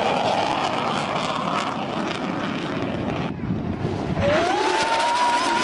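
Fighter jet's engine noise as it flies past, a steady rushing noise that suddenly thins out about three seconds in and comes back a second later. As it returns, a single clear tone rises and holds.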